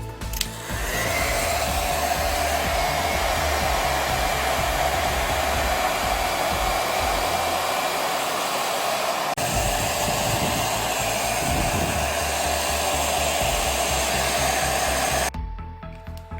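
A small electric motor spins up and runs steadily, with a rushing of air and a steady whine. It falters for an instant about nine seconds in, then stops suddenly near the end.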